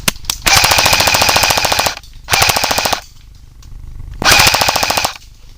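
Airsoft rifle firing full-auto in three bursts of rapid clicking shots: a long burst, a short one, then another of about a second.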